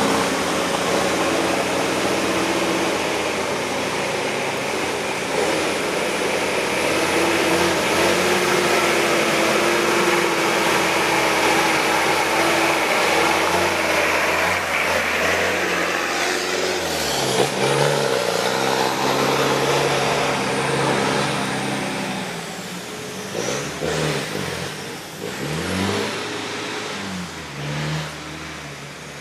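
A 4x4 vehicle's engine running steadily under load, then revving up and down repeatedly over the second half as the sound grows quieter.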